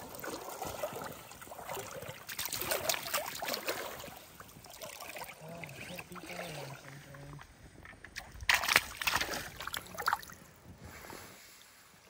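Water sloshing and splashing close to the microphone in uneven bursts, loudest about a third of the way in and again near the end. A short low voice mumbles in the middle.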